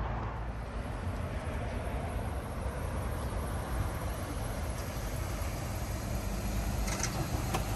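Chevrolet Suburban SUV pulling up close and running at low speed: a steady low engine and tyre rumble, with a couple of light clicks near the end.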